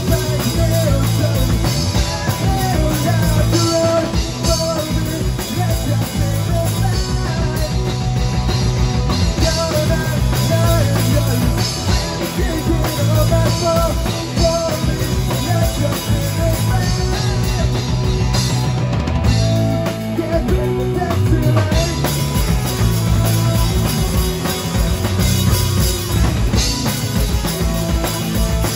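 Live rock band playing: drum kit and electric guitars through amplifiers, loud and steady.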